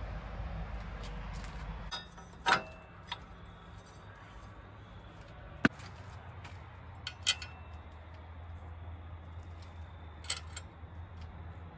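Several separate sharp metallic clicks and clinks, a second or more apart, from tools and metal parts being handled during ATV rear brake and axle work. They sit over a faint low hum.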